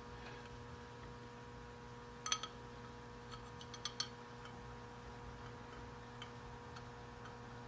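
A few light clicks and ticks from a hand working a wired part inside a glass jar, about two seconds in and again around three to four seconds in, over a faint steady electrical hum.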